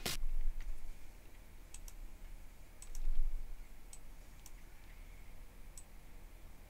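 Scattered single clicks of a computer mouse, about a second apart, over a low hum, with one low thump about three seconds in.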